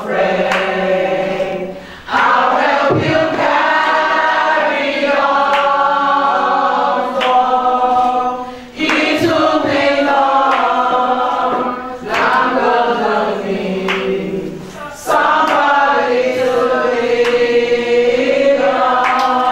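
A group of women singing together, a lead voice on a microphone carrying the tune with the others joining in. The song comes in long phrases with short breaks between them, about every three to six seconds.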